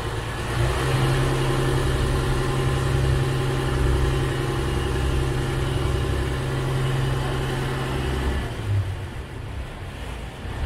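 River ferry's engine running steadily with a low hum and evenly spaced overtones, over the wash of the river water; the engine note eases off and grows quieter near the end.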